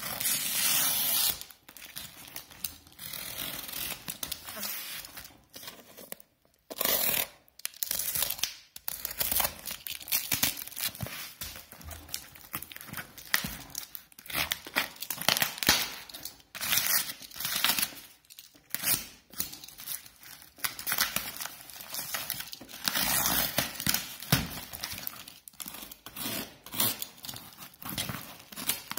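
Plastic wrap and packing on a cardboard parcel being cut with a utility knife and torn off, the film crinkling, in irregular rips and scrapes with short pauses.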